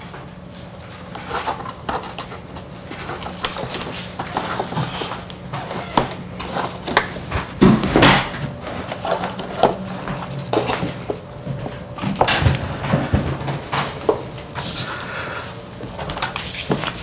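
Irregular small clicks, taps and rustles of hands working with an RC plane's servo leads and plugging them into the receiver, over a steady low hum.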